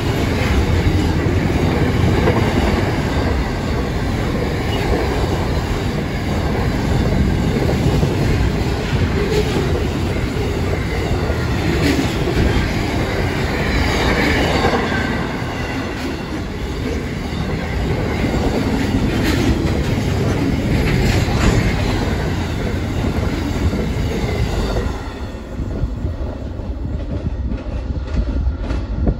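Container wagons of a long freight train rolling past at speed: a steady rumble with wheels clattering over the rails and occasional wheel squeal. The last wagon goes by about 25 seconds in and the sound drops away.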